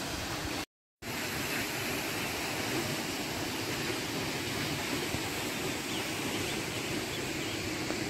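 Waterfall rushing: steady falling water. The sound drops out for a moment just under a second in.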